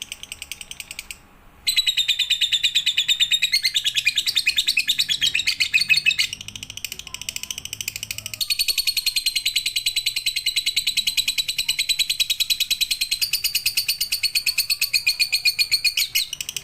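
A lovebird singing in long, very rapid high-pitched chattering trills, breaking off briefly about a second in and then shifting pitch and pattern several times.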